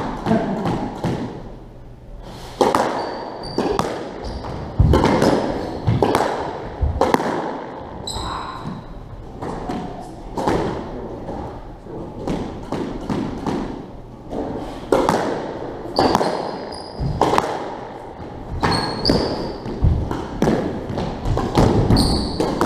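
Squash rally: the ball cracks off racquets and the court walls in sharp, echoing hits every second or so, with short high squeaks of shoes on the wooden floor between shots.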